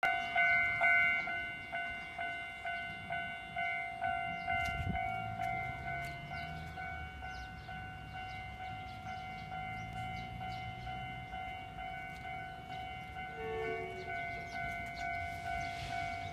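A railway level-crossing alarm rings steadily at about two strikes a second, warning that a tram is coming. A low rumble rises and fades under it between about five and eleven seconds in.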